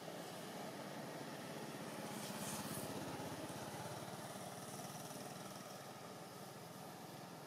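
A motor engine running steadily with a fast, even pulse. It swells a little a couple of seconds in, then slowly fades.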